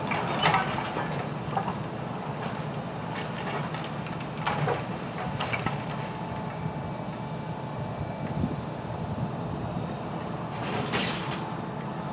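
Grapple truck's diesel engine running steadily to drive the hydraulic loader. Intermittent clanks and knocks come as the grapple lifts and swings a bundle of concrete crossties, about half a second in, around the middle, and again near the end.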